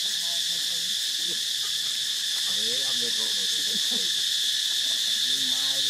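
Steady high-pitched insect chorus droning without a break, with faint lower calls in the background.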